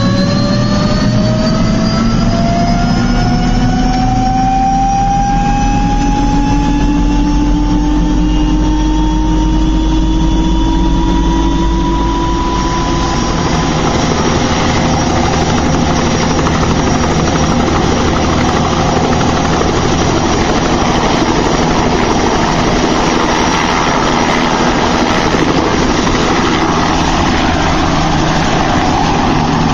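Helicopter engine and rotor noise heard from inside the cabin, sped up to double speed. A whine rises steadily in pitch for about the first twelve seconds, then gives way to a steady, dense rushing drone.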